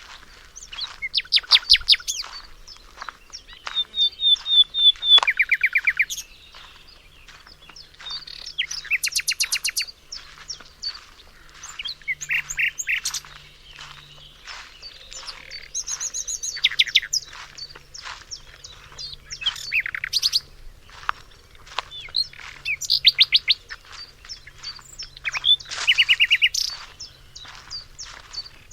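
Songbirds singing: short phrases of rapid repeated notes, a new phrase every two to three seconds.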